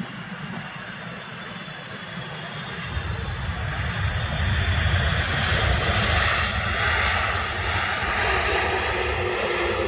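Jet noise from a four-engine Boeing 747-400 freighter rolling out just after touchdown, with a deep rumble that builds about three seconds in and then stays loud and steady.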